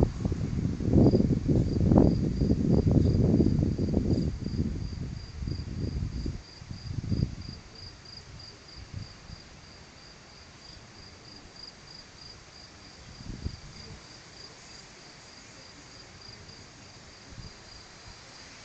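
Thunder rumbling and rolling, loud at first and dying away after about six seconds. Behind it a cricket chirps steadily, a rapid high-pitched pulse that carries on throughout.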